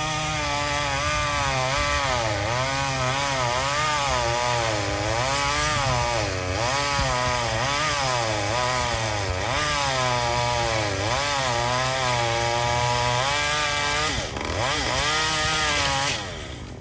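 Chainsaw cutting through a pecan limb, its engine pitch dipping and recovering again and again as the chain loads up in the wood. Near the end the revs drop sharply and pick up again, then the saw stops about a second before the end.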